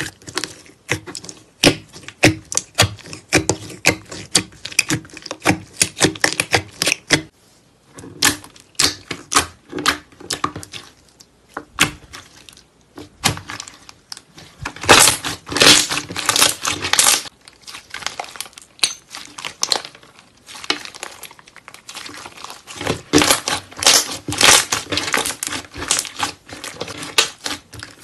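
White slime with small beads being poked, pressed and stretched by fingers: fast, irregular runs of sticky clicks and pops, with louder bursts about halfway through and again a few seconds later.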